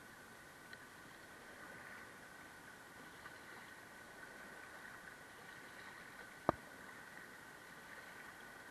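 Faint, steady rush of river water heard from a kayak heading into small rapids, with a single sharp knock about two-thirds of the way through.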